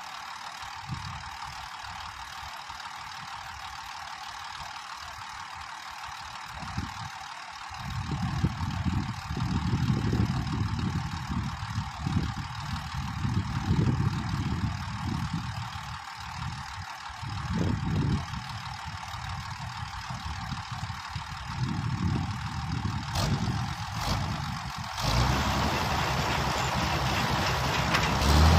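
Diesel farm tractor engine running steadily with a forage wagon in tow, with irregular low rumbling gusts over it from about eight seconds in. The noise broadens and gets louder near the end.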